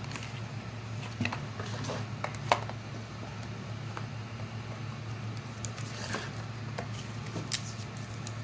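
Hands handling small objects: scattered light clicks, taps and rustles, the sharpest about two and a half seconds in, over a steady low hum.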